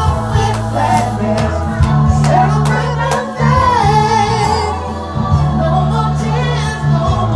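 Music with singing voices over sustained bass notes.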